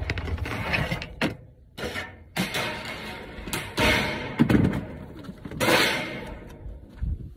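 A long vinyl skirting trim strip being handled against the house wall: a run of irregular rustling scrapes and a few knocks as the plastic rubs and bumps.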